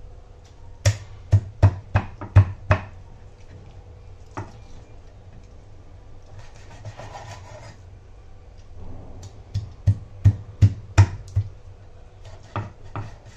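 Curved sickle-like knife chopping barramundi into small pieces, the blade hitting a wooden board. Two quick runs of about seven chops, near the start and again about ten seconds in, with a brief scrape between them.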